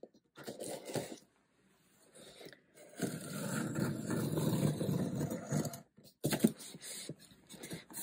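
A utility knife blade slicing along the packing tape of a cardboard box, a sustained scraping cut lasting a few seconds. Near the end come sharp clicks and crinkling as the box is opened and its plastic wrapping is handled.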